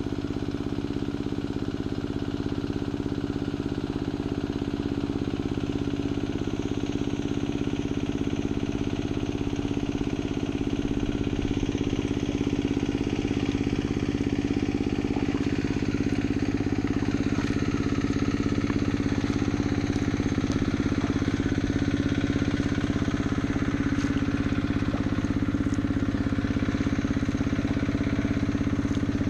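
An old water pump's engine running steadily at a constant speed, pumping water, slowly growing a little louder.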